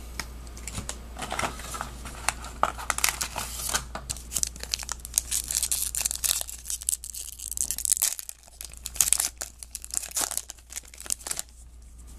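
Crinkling and tearing of a trading-card pack wrapper, with cards handled and slid against each other: a run of sharp crackles and rustles with short pauses.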